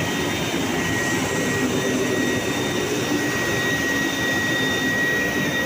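Steady din of sugar-factory machinery running: a dense rushing noise with a thin, steady high whine through it.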